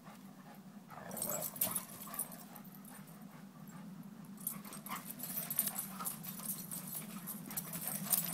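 Dogs playing rough together: scuffling and paws scraping through wood-chip mulch, picking up about a second in and again through the second half, over a steady low hum.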